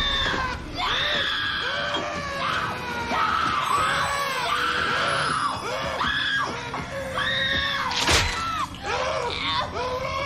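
A young woman screaming in terror, one high-pitched scream after another. A single sharp knock cuts through about eight seconds in.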